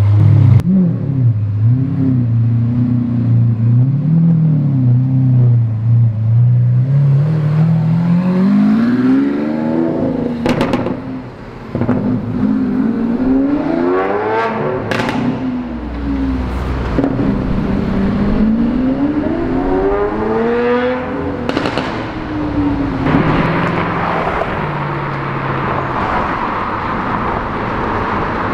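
Supercar engine revving and accelerating, its pitch climbing and falling several times, with a few sharp cracks at the top of some of the rises. It ends in a rushing noise with no clear pitch.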